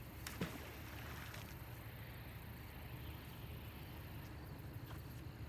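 Steady low outdoor background rumble, with a single sharp knock about half a second in.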